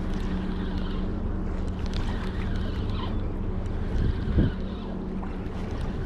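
Steady low engine drone of the Bramble Bush Bay chain ferry, with wind buffeting the microphone and a brief low thump about four seconds in.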